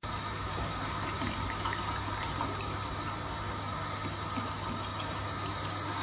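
Running water, a steady even rush, with a single small click about two seconds in.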